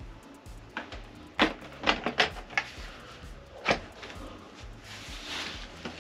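A 16Ah e-bike battery pack being slid and pressed onto its mounting cradle on the bike frame: a run of sharp plastic clicks and knocks, the loudest about a second and a half in, then a softer rustle of handling.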